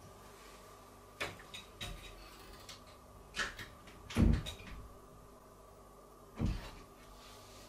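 A series of short knocks and bumps of a door and someone moving behind it, the loudest thump about four seconds in and another near the end.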